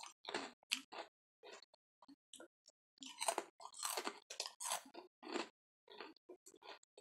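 A person chewing a sweet-and-salty frosted rice cracker (Yuki no Yado senbei) with the crunch of a pork rind: a run of irregular crisp crunches, busiest past the middle.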